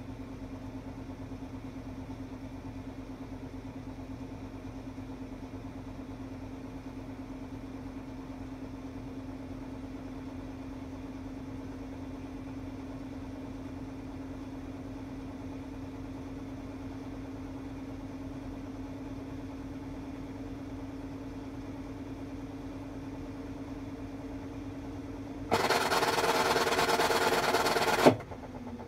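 Hitachi Beat Wash BW-8HV top-loading washing machine in its spin cycle, running with a steady pulsing hum. About 25 seconds in, a much louder harsh noise comes in for two or three seconds and stops with a sharp click. The owner reports that this ten-year-old machine makes an abnormal noise when the spin is at medium speed.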